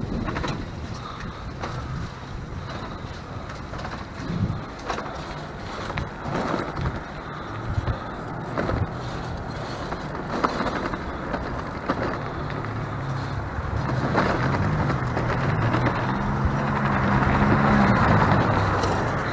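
A motor vehicle's engine rises in pitch and grows louder over the last several seconds, peaking near the end. Under it runs a steady low rumble with scattered clicks and rattles.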